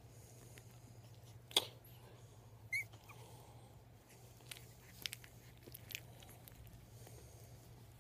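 Puppy mouthing and chewing on a finger: a few small clicks and smacks, the loudest a sharp click about a second and a half in, and a short high squeak near three seconds, over a faint steady hum.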